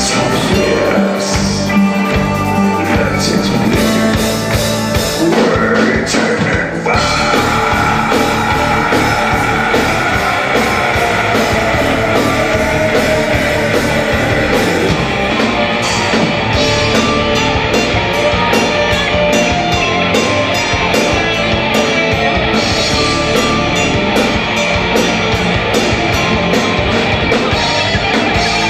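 Metal band playing live: distorted electric guitars, bass and a drum kit, loud and continuous, with a long held note over the band from about seven seconds in.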